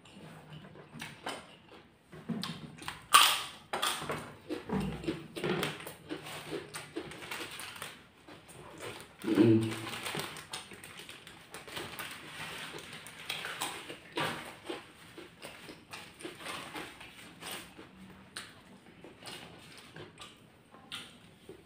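Close-miked eating sounds: chewing and mouth smacking of rice and chili sambal eaten by hand, with irregular crunchy clicks. A louder crunch comes about three seconds in, and a brief low vocal sound from the eater about nine seconds in.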